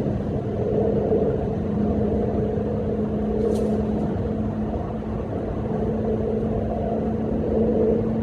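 Steady low rumble with a constant hum, with a brief high chirp about three and a half seconds in.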